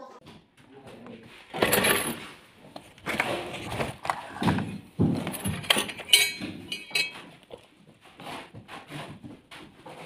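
Irregular clinks, knocks and scraping as PPR pipes and fittings are handled at a socket-fusion heating tool, with a brief squeak about six seconds in.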